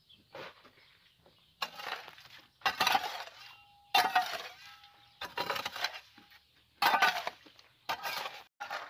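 A hoe chopping into stony, gravelly soil, about seven strikes a second or so apart, each a gritty crunch with stones clinking. A few strikes leave a brief ringing tone.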